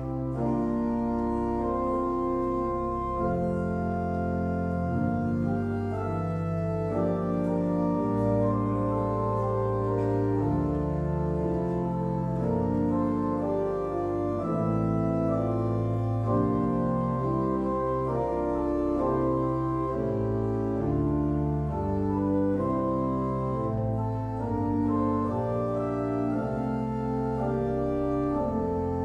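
Church organ playing slow sustained chords over long, low bass notes, the harmony changing every second or so.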